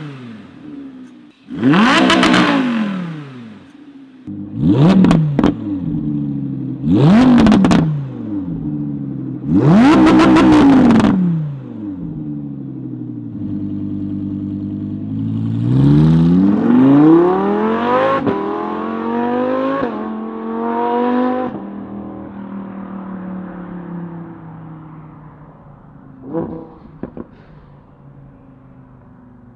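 Audi R8's V10 engine through an aftermarket titanium exhaust, revved in four sharp blips that rise and fall quickly, then a longer rev climbing in pitch before dropping back to a lower steady note. A couple of short sharp cracks from the exhaust come near the end.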